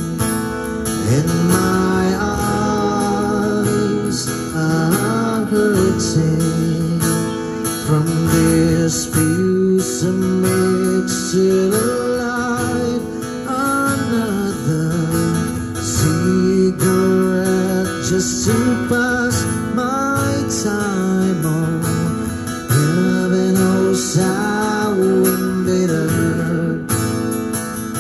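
Acoustic guitar strummed steadily while a man sings a slow melody into a microphone, played through small PA speakers.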